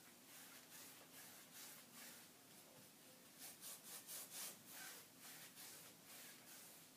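Faint rubbing of a brush working rabbit skin glue into cloth laid over a panel, in repeated strokes that come quicker and a little louder, about four a second, roughly halfway through.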